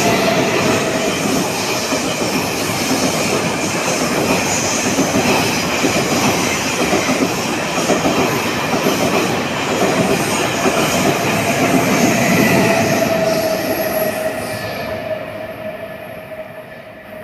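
Train running past on the rails, a dense rumble of wheels with a steady high whine over it. It fades away near the end and then cuts off suddenly.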